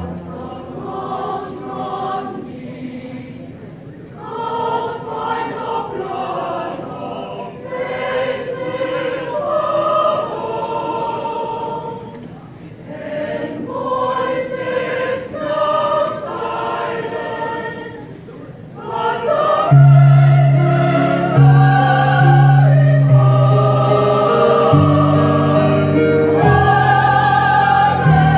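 Mixed choir of women's and men's voices singing under a conductor, in phrases separated by short breaths. About two-thirds of the way through the singing swells louder and fuller, with strong sustained low notes.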